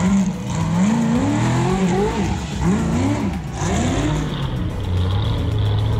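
Ultra 4 rock-racing car's engine revving in repeated rising and falling throttle surges, about one a second, as it works its way up a steep rock climb. Near the end the revs settle into a steadier, lower note.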